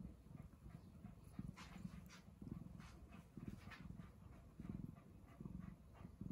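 Faint, low, rhythmic breathing of a sleepy brown tabby-and-white cat, with light wet clicks of its teeth and tongue as it gently gnaws on a finger.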